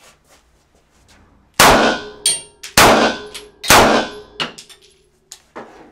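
Three 9mm full-metal-jacket handgun shots, about a second apart, striking a steel car hood, which rings with a metallic clang after each hit. A few lighter clicks follow.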